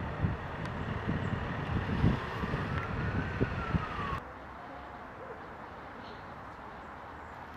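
Outdoor city background: wind buffeting the microphone over a steady traffic hum, with a faint distant siren rising and then falling once. About four seconds in it cuts abruptly to a quieter, steady background.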